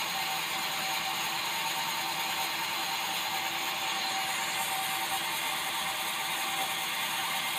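Band sawmill running steadily without cutting, a constant mechanical whir with a few held tones.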